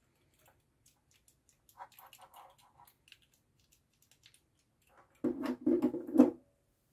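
A plastic push button with its contact block and attached wires being handled on a desk: scattered faint clicks and rustles, then a short run of knocks and scrapes about five seconds in as it is set down, the loudest part.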